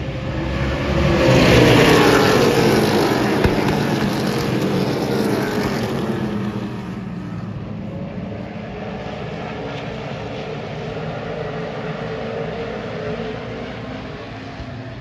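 A pack of NASCAR stock cars' V8 engines passing close by, loudest about two seconds in with the pitch dropping as they go past. The engines then carry on more distantly around the oval.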